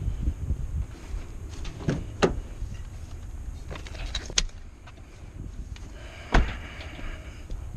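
Clicks and knocks from handling around a pickup truck, the loudest a sharp knock about six seconds in followed by a brief ringing tone, over a low rumble of wind on the microphone.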